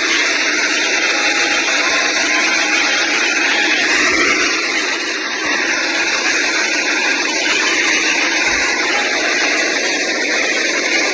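Jet aircraft engine running on the apron: a steady, loud rushing hiss that holds without a break.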